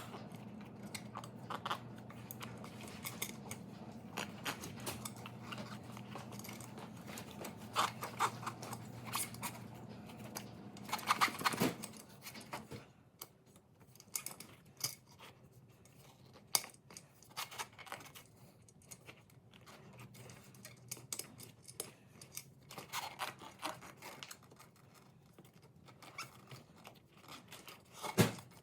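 Rubber tire and inner tube being worked by hand: irregular scuffs, creaks and clicks of handling, with a busier stretch about 11 seconds in. A steady low hum sits under the first twelve seconds and then stops.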